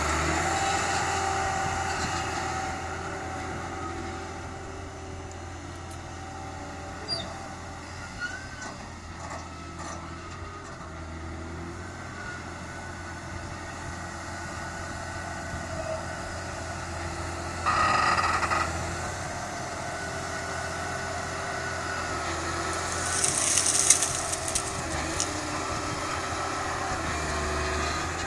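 Case IH Quadtrac 600 tracked tractor's diesel engine running under load while it pushes soil with a front blade, louder at the start and end and fainter in the middle as the machine moves away and back. A short louder burst comes about two-thirds of the way through, and a brief hiss shortly after.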